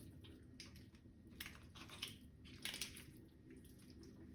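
Faint, scattered soft clicks and squelches of raw bone-in chicken pieces being handled by hand.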